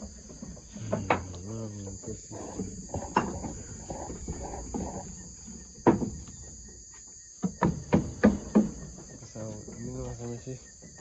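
Steady high-pitched chorus of night insects, broken by several sharp knocks, with a quick run of them past the middle, and a faint murmur of voices.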